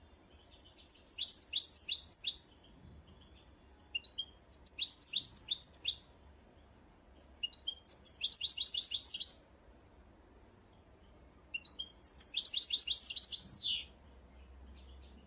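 A songbird singing four short phrases of fast, high repeated notes a few seconds apart, the last ending in a falling sweep.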